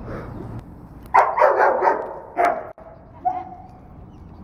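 A dog barking: a quick run of about four loud barks, then another single bark, then a shorter, softer one.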